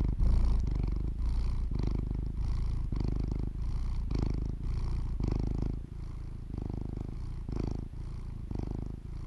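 A domestic cat purring close to the microphone: a low rumble that swells and eases about twice a second with its breathing. It gets somewhat quieter about halfway through.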